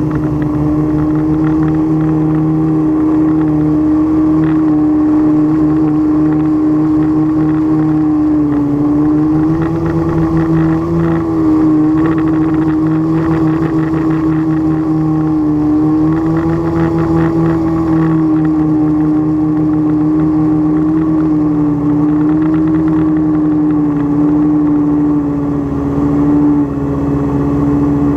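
Drone's propellers and motors humming steadily in flight. The pitch rises slightly and falls back a few times.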